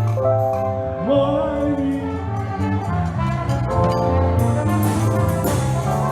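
Music: a slow melody of held notes, one sliding up about a second in, over a steady bass line.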